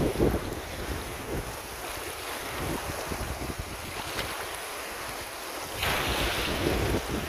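Wind buffeting the microphone, with a louder rush of noise about six seconds in.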